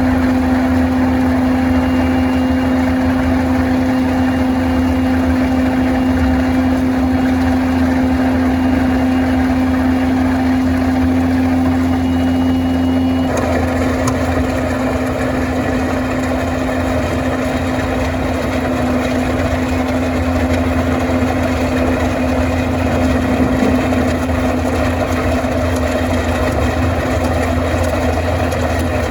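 Skid steer engine running steadily under load, driving a hydraulic road planer attachment, with a constant hum over a low rumble. About thirteen seconds in the sound shifts abruptly and turns rougher and noisier.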